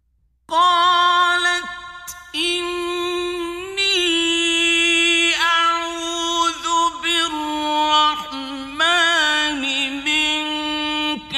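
A man's voice reciting the Quran in the melodic mujawwad (tajweed) style: long held notes with ornamented turns and short breaks. It starts about half a second in, after a pause between verses.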